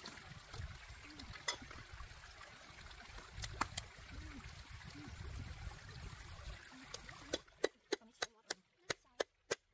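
Water trickling and flowing, with a few scattered clicks. About seven seconds in, the water sound cuts out and a steady run of sharp knocks begins, about three a second.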